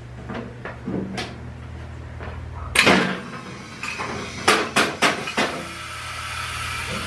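Motorcycle lift raising the bike: a steady low hum that stops with a loud clunk about three seconds in, followed by a few sharp metallic knocks and clicks.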